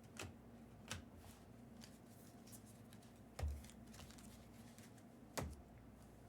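Trading cards being handled and set down on a table: a few light clicks and two louder taps, a little past halfway and near the end.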